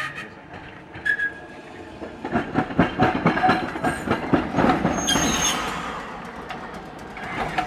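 A 1928 Canadian Car & Foundry streetcar rolling past close by, its steel wheels clattering rapidly over the rails. A brief high wheel squeal rings out on the curve about five seconds in.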